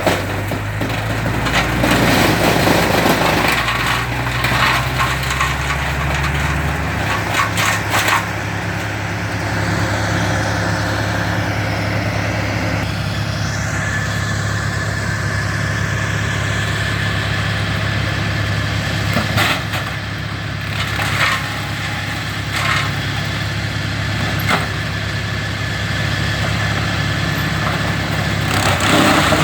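A steady-running engine of the tree crew's equipment, with its note shifting a few seconds in, and wood cracking and splintering at intervals.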